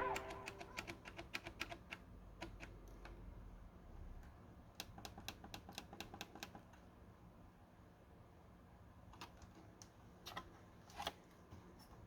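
Faint, light clicks and taps in irregular runs, a quick series early and a few louder ones near the end, from small hard objects being handled during the unboxing of the motherboard and its parts.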